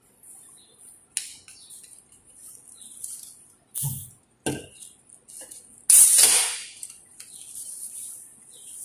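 Raw shrimp being moved about in a nonstick frying pan, with a few light knocks and clatters against the pan. About six seconds in comes the loudest sound, a sharp hissing crack that fades over most of a second.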